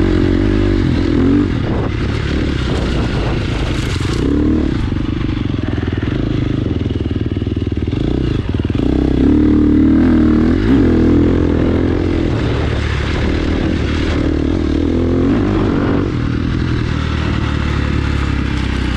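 2017 KTM 350 XC-F's single-cylinder four-stroke engine being ridden hard, its pitch rising and falling continually with the throttle.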